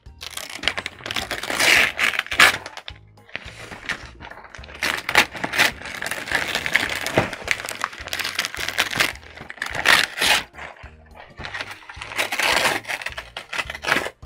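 Printed wrapping paper being torn off a package: repeated irregular rips and crinkles. Background music plays underneath.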